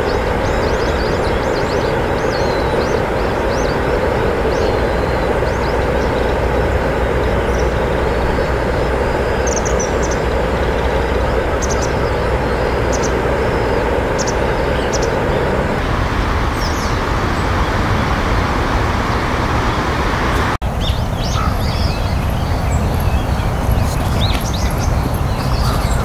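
Steady rush of flowing river water, with short high chirps of small birds over it. The water sound changes about 16 seconds in, and a few seconds later it cuts to a different background with more frequent chirps.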